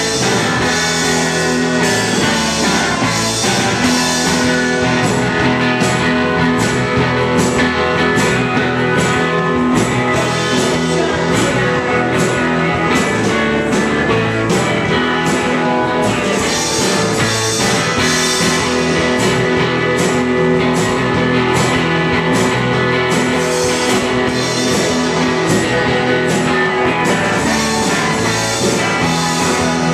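Live rock band playing loud: electric bass, electric guitar and a drum kit keeping a steady beat with cymbals.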